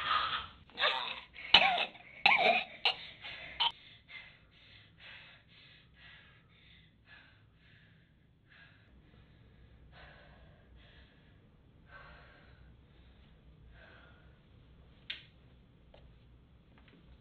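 A person gasping and straining hard during a struggle, then panting heavily, the breaths growing fainter over the following seconds. A single sharp click comes near the end.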